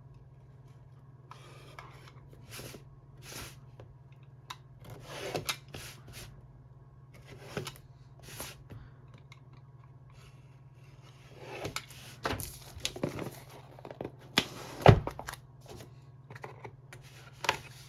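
Smartphone retail box being opened and handled: scattered rubbing and scraping of cardboard and paper, with a sharp knock about fifteen seconds in. A low steady hum runs underneath.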